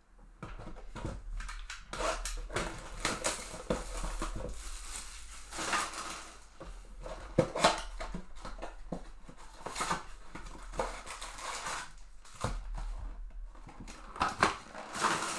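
Crinkly plastic shrink wrap being torn and pulled off a cardboard trading-card box, then the box being opened and its card packs handled. Irregular crackling and rustling, with a few sharper snaps.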